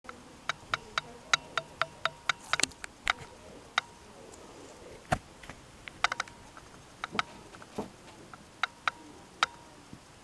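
A series of sharp, light clicks and taps, quick and irregular in the first three seconds, then more scattered.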